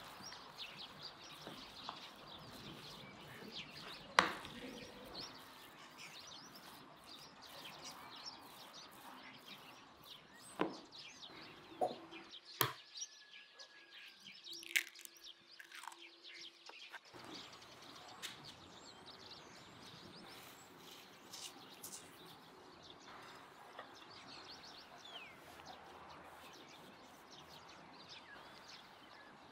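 Small birds chirping and twittering, with a few sharp knocks or clicks, the loudest about four seconds in.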